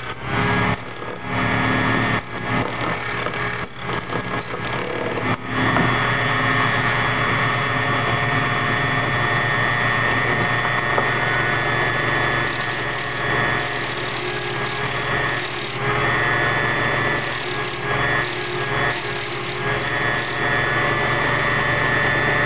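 Foley Belsaw Model 200 key-cutting machine running, its motor and cutter cutting a key blank. Uneven with short breaks for the first five seconds or so, then a steady run until it shuts off at the end.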